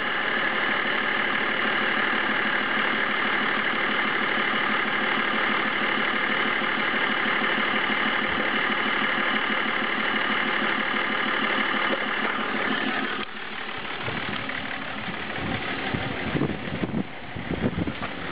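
BMW 530d E39's 3.0-litre straight-six diesel engine idling with a steady rapid clatter, the noise the owner takes for abnormal. About thirteen seconds in the sound drops and changes, with irregular low thumps near the end.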